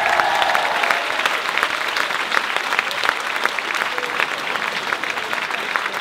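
Audience applauding steadily at the end of a samba dance number, a dense patter of many people clapping.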